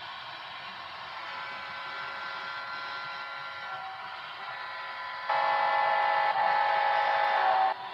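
A model diesel locomotive's onboard sound system plays a steady diesel engine sound. About five seconds in, a loud horn blast comes in, holds for about two and a half seconds and cuts off sharply.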